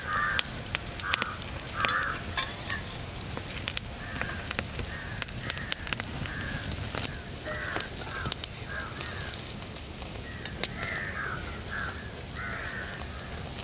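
Crows cawing repeatedly in short runs, with a lull about two-thirds of the way through. Sharp crackles from the wood fire under the roasting chickens come through now and then.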